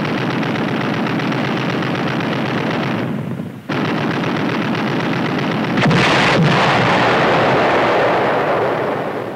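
A 20-millimeter deck gun fires rapid automatic bursts, with a short pause about three seconds in. About six seconds in, a floating sea mine explodes in a louder blast that fades away over the next few seconds.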